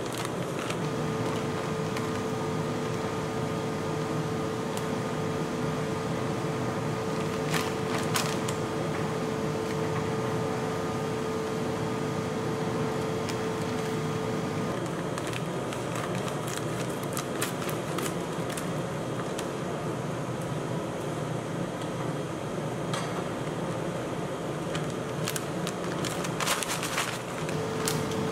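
Steady hum of an ice-cream-roll cold plate's refrigeration unit, with a steady tone that stops about halfway and comes back near the end. Over it, a foil potato chip bag crinkles now and then as it is handled and opened, most of all near the end.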